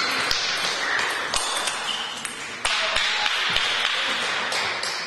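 Celluloid-style table tennis ball ticking about five times at irregular intervals over a steady hiss of hall noise.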